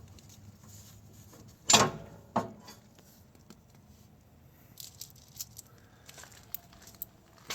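Metal clinks as the steel retaining pin is worked out of the tractor's stowed hydraulic lift bar: two sharp clanks with a brief ring about two seconds in, then a few lighter clicks.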